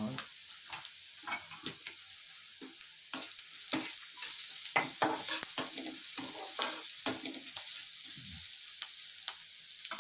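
Onions, garlic and green chillies frying in hot oil in a kadhai: a steady sizzle with the clatter and scrape of stirring against the pan. The stirring strokes come thicker and louder from about three seconds in.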